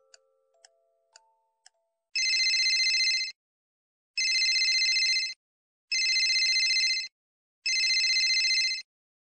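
Mobile phone ringing with an incoming call: four trilling rings of about a second each, evenly spaced. Before the first ring, a clock ticks faintly about twice a second.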